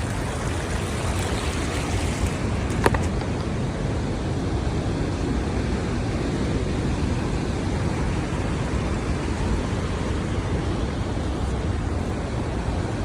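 Steady rushing of a nearby waterfall and stream, a constant roar of water. A single sharp click about three seconds in.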